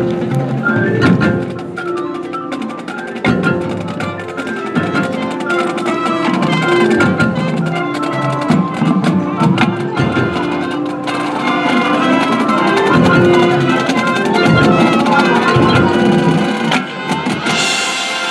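High school marching band playing: held chords from the winds with busy percussion hits throughout, and the sound brightening in the highs near the end.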